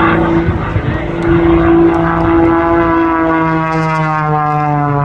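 Single-engine aerobatic propeller plane in flight, its piston engine and propeller giving a loud, steady buzzing drone whose pitch slowly falls over the second half.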